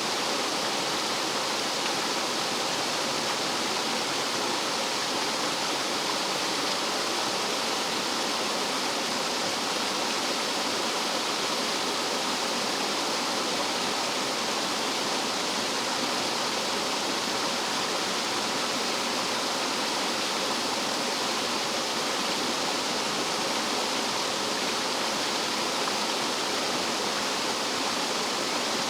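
Rough mountain-stream water rushing and cascading over rocks like a small waterfall: a steady, dense rushing with no let-up.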